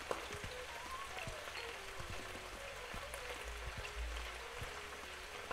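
Faint, steady sizzling with scattered small crackles from chicken pieces, potatoes and carrots frying in oil in a pan.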